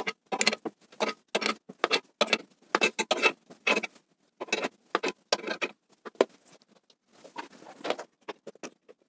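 Car scissor jack being cranked by hand under a heavy, loaded cabinet: a rhythmic run of short scraping strokes, about two or three a second, with a brief pause about four seconds in and fainter strokes near the end.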